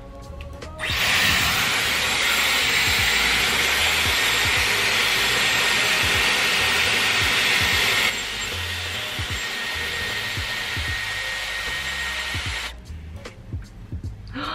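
Dyson Airwrap running with a steady rush of air and a faint high whine while a section of hair is curled on its large barrel. About eight seconds in the airflow drops to a lower, quieter level, and it switches off near the end.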